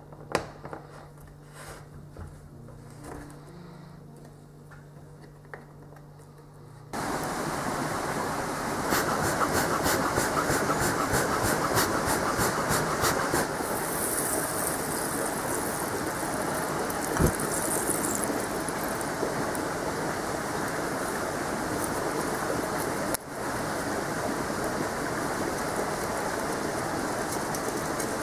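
Charcoal hearth fire burning with a loud, steady rushing roar that starts abruptly about seven seconds in, with a stretch of sharp crackling soon after. Before that, only soft handling clicks from lacing a skin onto a wooden frame.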